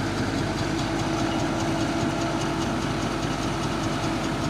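Diesel engine running steadily, with a light, even clatter.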